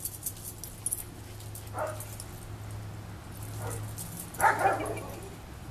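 Sealyham Terrier puppy giving short yips, a brief one about two seconds in and a louder one about four and a half seconds in, over a steady low hum.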